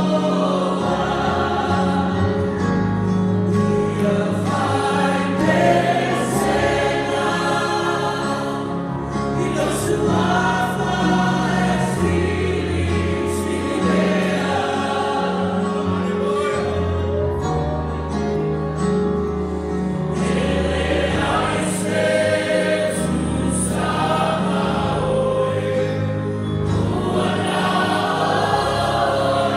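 A church worship band and singers lead a congregational hymn in Samoan, many voices singing together over sustained bass notes, with a few brief cymbal strokes.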